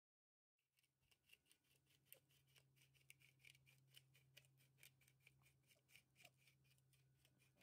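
Bottle-type peppercorn grinder being twisted over raw shrimp, a quiet run of rapid ratcheting clicks, several a second, starting about half a second in. A faint steady low hum sits underneath.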